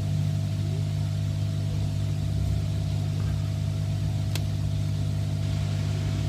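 Steady low electrical or machine hum with a thin higher tone running through it, and a single small click about four seconds in.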